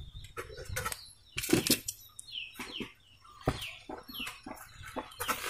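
Sharp plastic clicks and knocks from hands working at the fuse panel under a car's dashboard, the loudest about a second and a half in and again near the middle. Behind them, a bird gives four or five short falling chirps.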